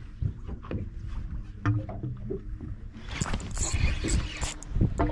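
Wind and water noise around a small boat, with a run of quick sharp clicks and rustles from about three seconds in as the spinning reel and rod are handled on a bite.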